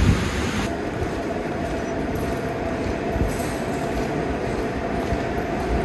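Storm rain and wind, cut off sharply less than a second in, followed by a steady low rumbling hum with a faint held tone.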